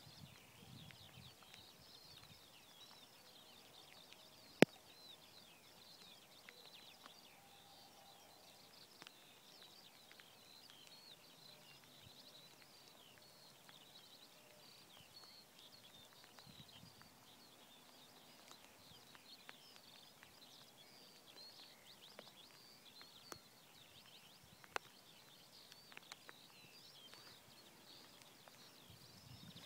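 Faint, continuous chirping and twittering of small birds, many short high notes overlapping. A single sharp click about four and a half seconds in, with a few fainter clicks later on.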